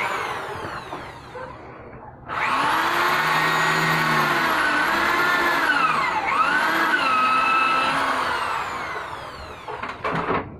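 Cordless electric drill running into a wooden frame: a brief spin at the start, then a sustained run of about seven seconds whose motor whine dips and rises in pitch as trigger and load change, winding down near the end.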